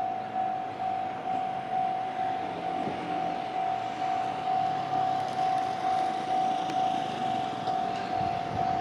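Japanese railway level-crossing alarm ringing its steady electronic 'kan-kan' tone, about two strikes a second, warning of an approaching train. A low rumble begins to build near the end as the train comes in.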